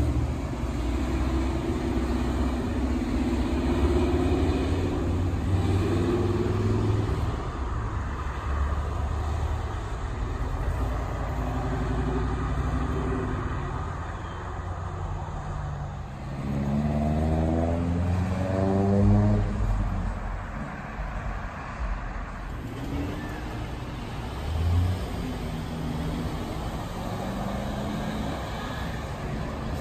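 Cars driving past on a street, engines and tyres running steadily. About two-thirds of the way through, one car accelerates hard, its engine note climbing in pitch, then the traffic settles back to a steady run.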